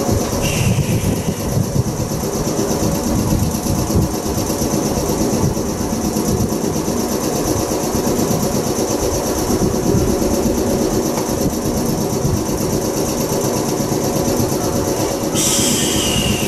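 JR West 105 series electric train standing at a station, its underfloor equipment running with a steady hum and a fast rhythmic pulsing. A higher hiss joins near the end.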